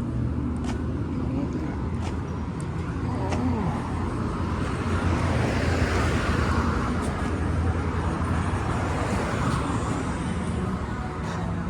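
Road traffic with a steady low engine hum; a vehicle passes close by around the middle, its noise swelling and fading.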